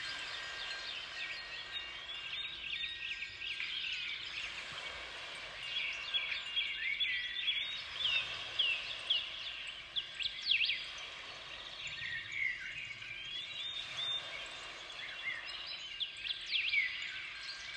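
A flock of small birds chirping and twittering, many quick overlapping calls at once, over a faint steady background hiss.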